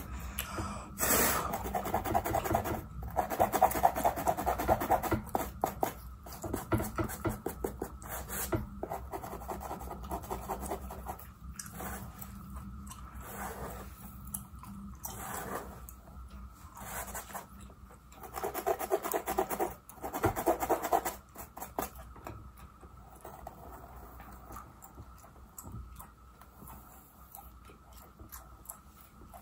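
An orange plastic comb scratching over a mannequin head's scalp and through its hair, in runs of rapid, dense strokes. The strokes are loudest in two stretches, near the start and about two-thirds of the way in, and fade to softer rubbing near the end.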